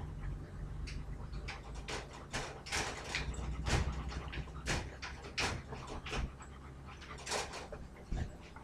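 Metal wire dog crate rattling in a handful of irregular clicks and clanks as puppies push and paw at it, with a puppy panting.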